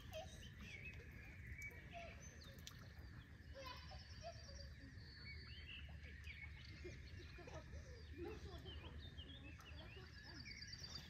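Faint birdsong from several small birds: scattered short high chirps and a few quick high trills, over a low steady outdoor hush.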